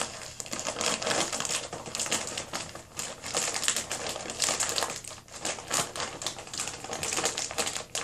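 Plastic poly mailer bag crinkling and crackling as hands pull and twist at it, trying to tear it open. A dense run of small crackles with a few brief pauses.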